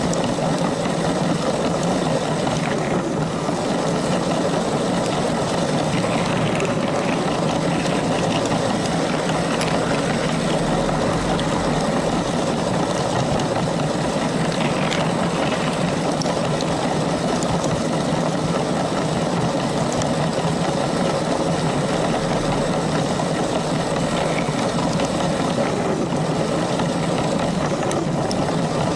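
LEGO train running along its track: the small electric motor whirs and the wheels rumble on the rails in one steady, unbroken noise.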